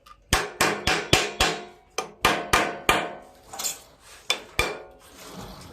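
Hammer blows on a pry bar set against the valve cover of a Briggs & Stratton 17.5 hp engine, striking about three times a second with a metallic ring, to break the cover's gasket seal. The blows stop near the end, leaving a softer scraping noise.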